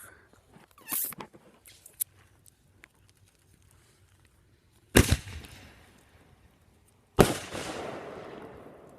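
Consumer fireworks going off: a sharp pop about a second in and a smaller one soon after, then two loud bangs a little over two seconds apart, each fading out slowly, the second with a long tail.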